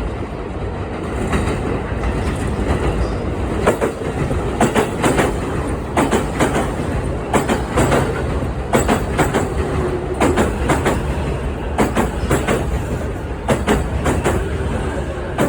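JR East E233-series electric train running on track with a steady rumble: a clickety-clack of wheels striking rail joints in pairs about every one and a half seconds.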